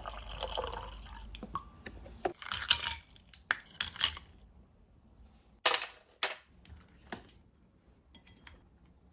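Kitchen handling sounds: a liquid sound for about the first two seconds, then a run of separate sharp clicks and knocks of dishes and utensils being set down and handled.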